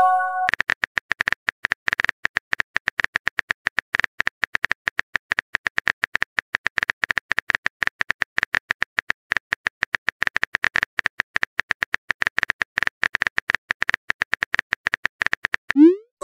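Phone-keyboard typing sound effect: rapid, even key clicks, several a second, as a text message is typed out. It opens with a short chiming message-sent tone, and a quick rising swoop comes near the end.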